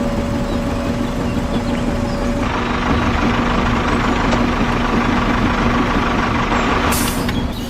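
A small motor running steadily with a constant-pitched hum. The hum's tone changes about two and a half seconds in, and there is a short sharp noise near the end.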